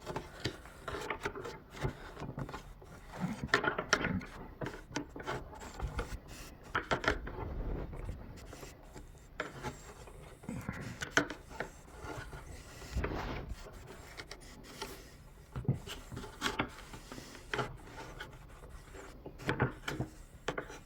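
Screwdriver scraping and prying at old headlight sealant in a car headlight housing: irregular scrapes, rubs and small sharp knocks.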